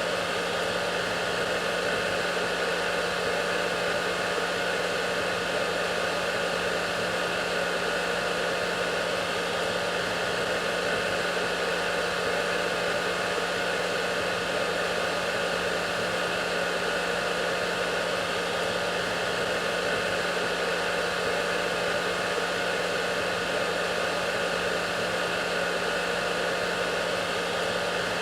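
Hair dryer running steadily: an even rush of air with a constant motor hum underneath, unchanging throughout.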